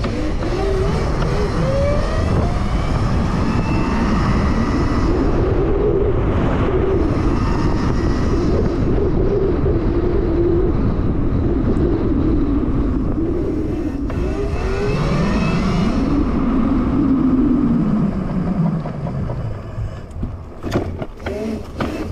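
Electric dirt bike under way, its converted motor and chain drive whining in a pitch that rises and falls with the throttle as it speeds up and slows, under heavy wind rumble on the microphone. Near the end the bike slows and the whine fades, with a few sharp knocks.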